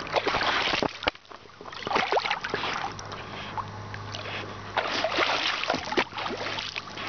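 Water splashing and sloshing around a bull terrier paddling through a lake, in irregular surges, over a faint steady low hum.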